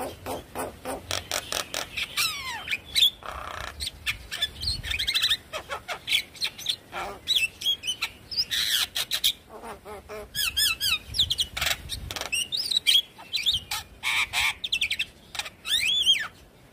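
Javan myna singing: a fast, varied string of clicks, chattering notes and whistles that glide up and down in pitch.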